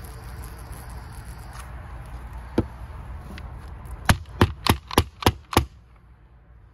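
WD-40 aerosol sprayed through its straw into a chainsaw's plastic clutch cover, a steady hiss that stops about a second and a half in. About four seconds in come six sharp knocks in quick succession, about three a second.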